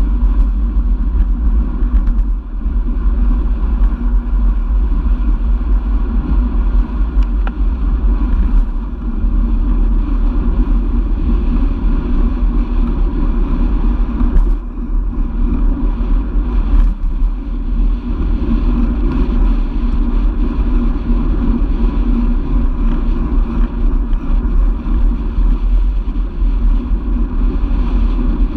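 Wind rumble and road noise on a camera mounted to a moving road bike: a loud, steady low rumble with no engine, and two brief clicks about halfway through.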